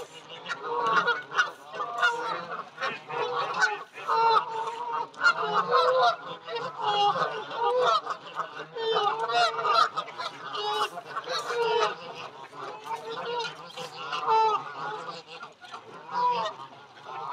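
A large flock of Canada geese honking without pause, many calls overlapping.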